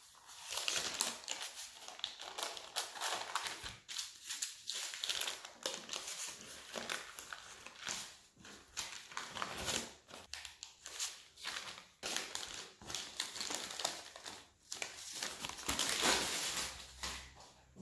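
Parchment paper rustling and crinkling as it is unfolded and peeled off a flat slab of margarine. The rustle comes in uneven handfuls, louder near the end.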